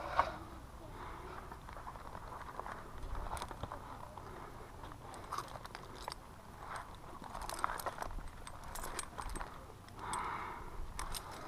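Tree-climbing rope and harness hardware being worked: scattered light clicks and rattles of carabiners and the rope device, with soft rustling of rope and gloves.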